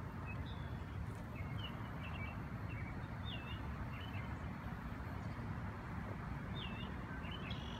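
Small birds chirping in short, scattered calls over a steady low outdoor rumble.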